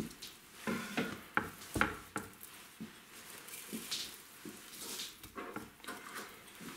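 Kitchen knife cutting a raw roe deer saddle along the bone on a wooden cutting board to free the fillet. A cluster of sharp clicks and knocks comes in the first couple of seconds, then quieter scraping and handling of the wet meat.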